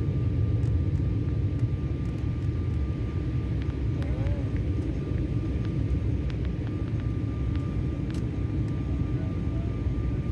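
Steady cabin noise inside an Embraer E-170 airliner on descent: a low rumble of airflow and its two turbofan engines, with a faint steady high whine over it.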